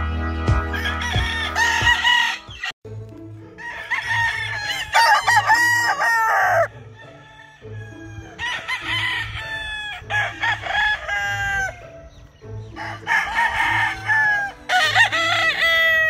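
Gamefowl roosters crowing, about four long crows in a row, each trailing off in a falling tail. Under them runs a steady low beat of background music, which plays alone for the first three seconds.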